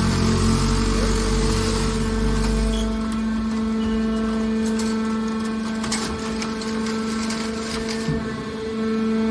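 Hydraulic aluminium-can baler's pump running with a steady hum. A deeper rumble drops away about three seconds in, and a few sharp clicks come near the middle.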